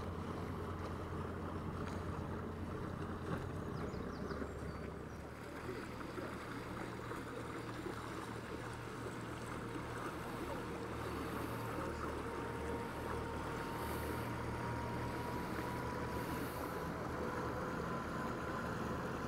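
Motor boat's engine running steadily, a low drone, with a faint whine that slowly rises in pitch during the second half.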